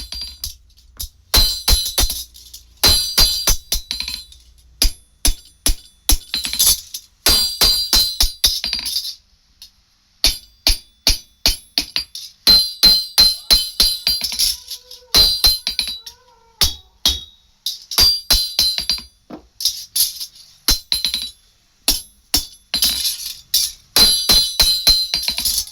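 Hand hammer striking a steel sickle blade being forged, in quick runs of ringing blows, several a second, with short pauses between the runs.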